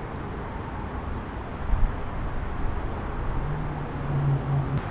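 Outdoor background noise of road traffic, with a brief thump about two seconds in and a vehicle's low engine hum near the end.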